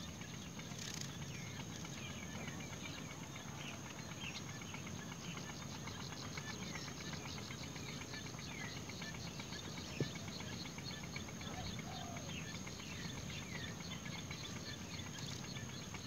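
Faint outdoor ambience: scattered short bird chirps over a steady high insect hum, with a fast ticking insect trill through the middle stretch and a single soft click about ten seconds in.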